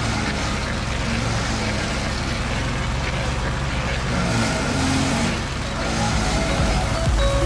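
Two stump grinders working at once: an Avant 860 compact loader driving a Dipperfox SC400 cylinder stump grinder, and a self-propelled Laski disc stump grinder. Their engines run steadily under load as the cutters grind into hardwood stumps.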